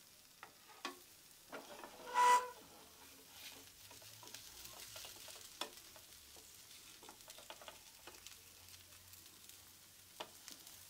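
Dosa frying on a nonstick pan, with faint sizzling and crackling, while a spatula and knife scrape and tick under its crisp edges to loosen it for flipping. A short ringing clink comes about two seconds in.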